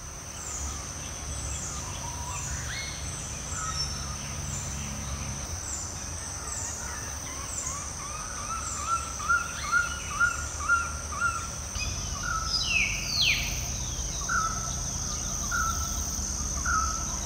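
Wild birds calling over a steady high-pitched insect drone: quick repeated chirps at first, then a run of evenly spaced whistled notes, a louder falling call about two-thirds of the way in, and three spaced notes near the end.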